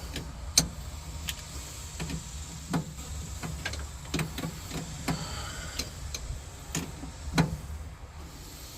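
Hand tools clicking and tapping irregularly on metal, over a steady low hum.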